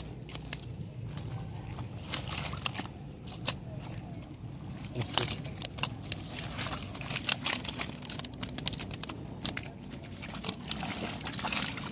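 Wild tilapia flapping inside a mesh keepnet as it is handled, the netting rustling with irregular crackles and slaps.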